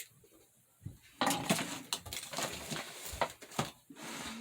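A Boker Congress pocketknife being handled and worked open, its blades stiff to pull. There is a sharp click at the start, then a couple of seconds of metal clicking and scraping from the knife and hands, with a softer rustle near the end.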